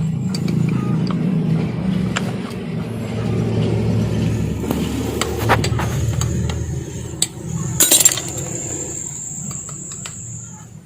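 Light metal clicks and clinks of sewing-machine parts being handled and fitted, with a louder metallic clank about eight seconds in, over a steady low rumble that fades near the end.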